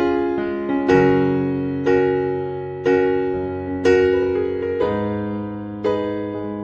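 Background music on a piano-like keyboard: slow chords struck about once a second, each left to fade before the next.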